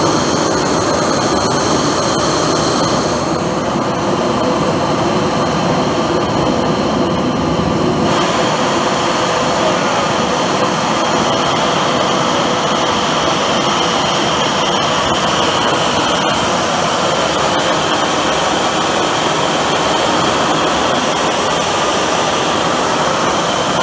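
High-velocity propane forge burner running at high fuel output, a loud, steady jet-like rush of gas and flame.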